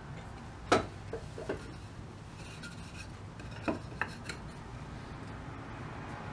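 Wooden strips knocking against and rubbing over a cast-iron framing clamp as they are set into its jaws: a sharp knock about a second in, a couple of lighter taps just after, and a few more knocks around the middle.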